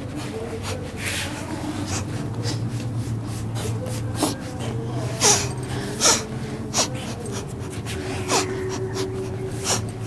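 A person's sharp, forceful breaths, repeated many times and loudest about five and six seconds in, with a low moaning voice held between them.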